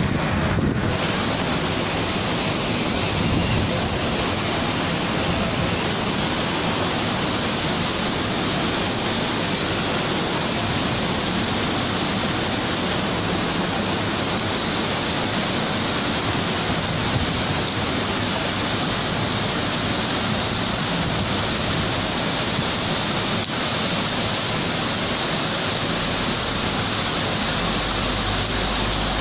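Steady rushing of flowing water in a factory wastewater channel.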